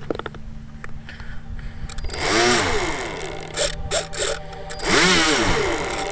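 Firebird Stratos RC plane's electric motor throttled up and back down twice, about three seconds apart, its whine rising and then falling in pitch each time.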